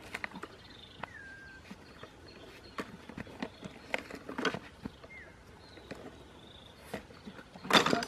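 Scattered clicks and rustling in dry leaves and grass as a person moves about and handles a plastic basket, with a louder rustle near the end. A few short chirps are heard.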